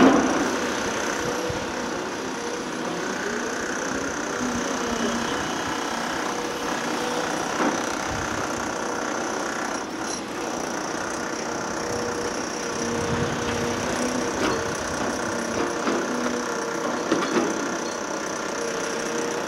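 Motor vehicle and machinery engines running steadily, with their pitch wavering, and a sharp loud knock at the start and a few fainter knocks later.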